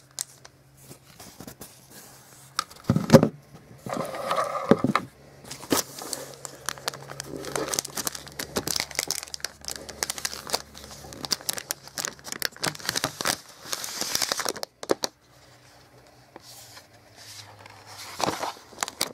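Plastic sleeve crinkling and tearing as a tablet is worked out of it by hand: irregular rustles and crackles, with a couple of louder handling knocks about three and five seconds in, easing off near the end.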